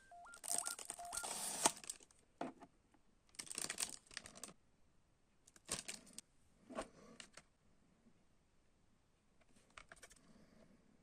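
Hands handling a CD album's packaging: a series of rustling, crinkling bursts with small clicks, the loudest near the start and fainter ones toward the end.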